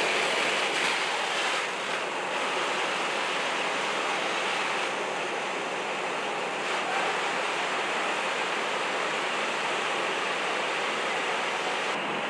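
Steady rushing hiss of water from a ladder truck's elevated master stream spraying onto a building fire.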